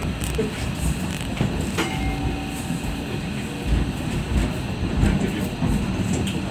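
Hong Kong Light Rail car running on a curving track, heard from inside the car: a steady low rumble of wheels on rails, with a sharp click about two seconds in followed by a brief held tone.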